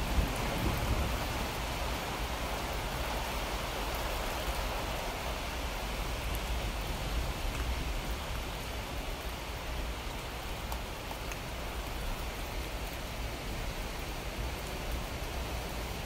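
Steady rain falling: an even hiss with scattered drop ticks, and a low rumble that eases after the first second.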